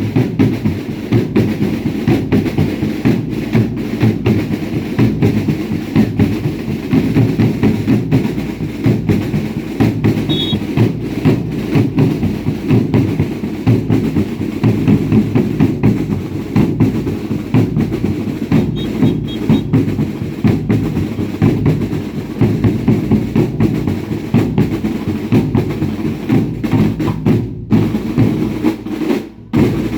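Drums beating a fast, steady rhythm, with a brief dip for a moment near the end.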